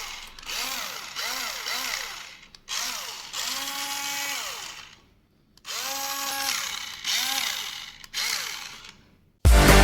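Small electric motor of a toy RC car whining as it is revved in short bursts, its pitch rising and falling with each burst. Two longer, held revs come near the middle.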